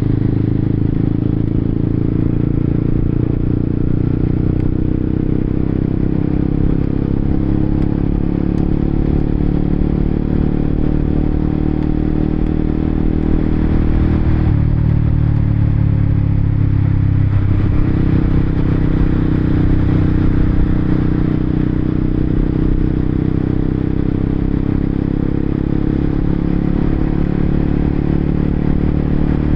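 Honda CBR motorcycle engine running steadily on the move, heard from the rider's position over a haze of wind and road noise. A little past halfway the engine note falls away and then picks up again.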